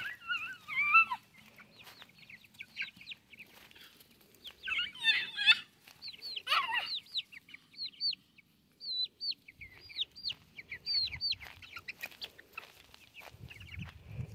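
Young white chickens peeping: a few warbling trills, then a long run of short, falling high chirps, one after another.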